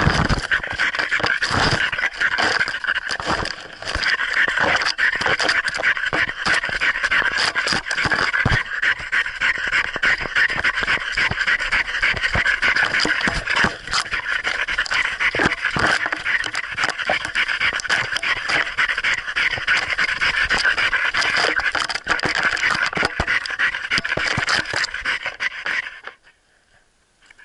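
A dog panting hard right at the microphone as it runs, with rustling and knocks from leaf litter and sticks underfoot. Near the end the panting stops abruptly for about a second.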